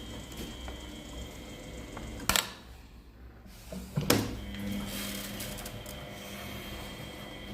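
Miele W833 washing machine running with a steady hum. Two sharp clicks come about two and four seconds in, with a brief quieter gap between them.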